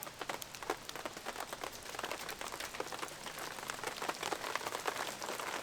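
Rain falling, with many separate drops ticking irregularly on a nearby surface.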